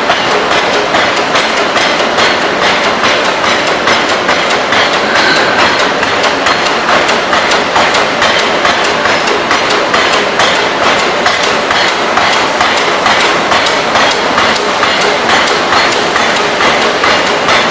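Electro-hydraulic open-die forging hammer striking hot metal in rapid, even blows over a continuous loud machinery din.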